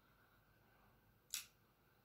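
Near silence broken by a single sharp click a little past halfway, from a screwdriver and screw meeting the metal joystick mounting plate while the screws are fitted.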